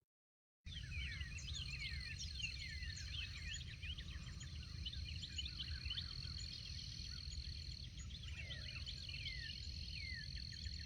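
Outdoor morning ambience: many birds chirping in quick falling notes over a steady high insect drone, with a low rumble underneath. It cuts in suddenly after a brief silence.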